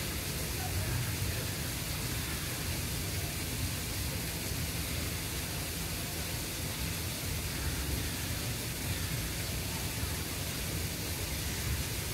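Steady background noise: an even hiss with a low rumble underneath, and no distinct events.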